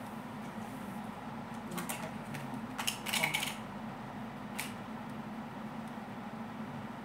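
A steady low hum, with a few light clicks and a short clatter about three seconds in, as face-painting brushes and paint pots are handled on the table.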